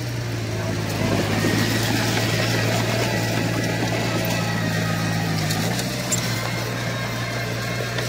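Komatsu crawler bulldozer's diesel engine running steadily, louder from about a second in, with its note dipping about six seconds in.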